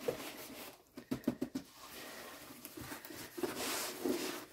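Diamond painting canvas being rolled up by hand: light rustling with a quick run of soft clicks and taps about a second in, and a faint low hum near the end.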